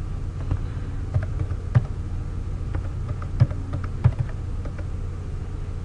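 Computer keyboard keys tapped as digits are typed, a scatter of irregular sharp clicks over a low steady hum.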